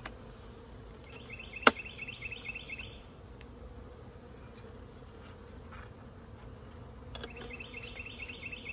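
Honeybees buzzing in a steady hum around an open hive. A single sharp knock sounds about a second and a half in, and a rapid high-pitched chirping comes twice, once early and again near the end.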